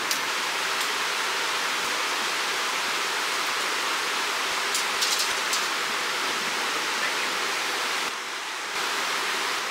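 Steady rushing of a mountain stream, with a few faint clicks about halfway through.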